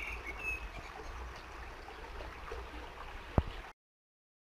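Outdoor background noise with a steady low rumble, with a few faint high-pitched squeaks at the start. A single sharp click about three and a half seconds in, then the sound cuts off abruptly.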